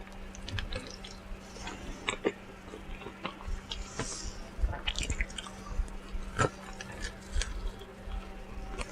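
Close-miked chewing and lip-smacking on fried chicken: irregular wet mouth clicks and soft crunches, with a faint steady hum underneath.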